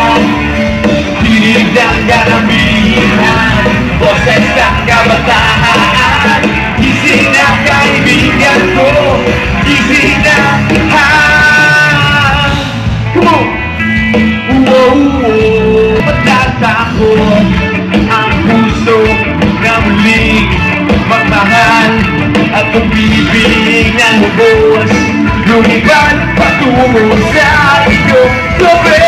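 Live rock band playing loudly through a concert sound system: electric guitar, bass and drums under a male lead singer.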